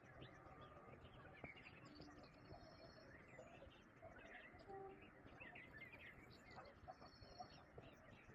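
Faint birdsong: several birds chirping, with one short song phrase repeated a few times.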